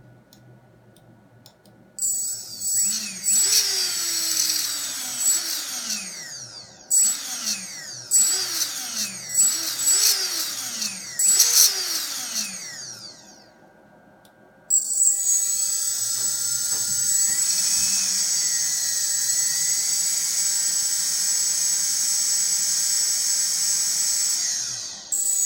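Emax RS2205 brushless drone motor with a screeching noise. It is blipped up and down in a string of short spin-ups, its whine rising and falling with each one. After a short pause it runs steadily at a high pitch for about ten seconds, a shrill high tone over the whine.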